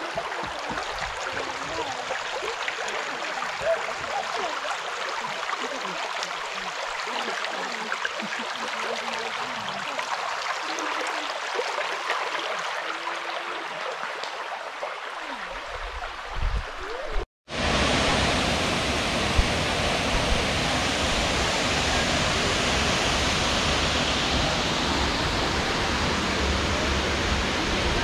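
Shallow creek water rippling and splashing over flat sandstone ledges and rocks, a steady rushing sound. About 17 seconds in it cuts off for an instant and comes back louder and fuller, with a low rumble underneath.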